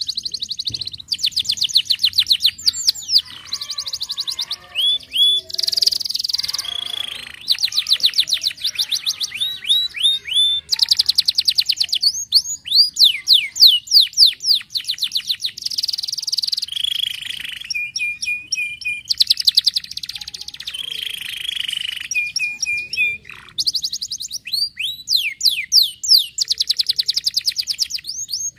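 Domestic canary singing a continuous, high-pitched song of fast trills: runs of rapidly repeated notes that switch to a new phrase every second or two, with a couple of short steady whistled notes past the middle.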